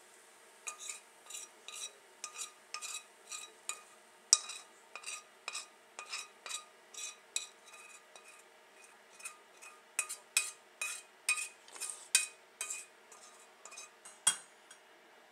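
Steel spoon scraping and clinking against a stainless steel pan, knocking roasted garlic out into a mesh strainer. The short metallic clinks come about twice a second, each with a brief ring, and are loudest around four seconds in and again between ten and thirteen seconds.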